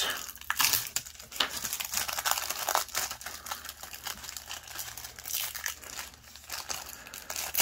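Thin clear plastic bag crinkling and rustling in the hands as it is opened and a plastic parts sprue is pulled out of it.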